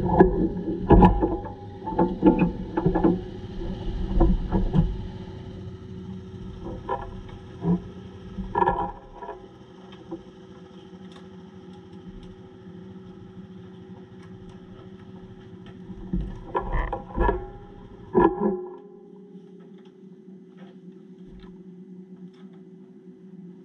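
Motorcycle engine running at a steady speed, with repeated bursts of low rumbling buffeting on the microphone in the first few seconds and again for a couple of seconds near the end; after that only the steady engine drone remains.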